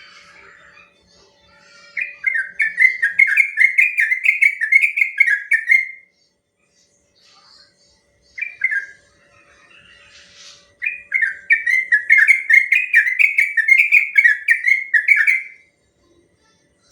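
Yellow-vented bulbul singing: two long runs of quick, repeated falling notes, each lasting about four seconds, with a short phrase between them.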